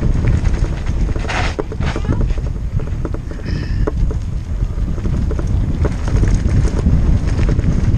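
Wind buffeting the microphone of a mountain bike rolling fast down a loose gravel road, a steady low rumble, with the tyres crunching and the bike rattling in scattered short clicks. A short hiss about a second and a half in.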